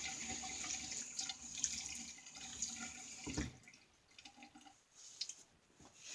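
Sink tap running with water splashing into the basin, shut off a little over halfway through with a soft knock, then a few faint clicks.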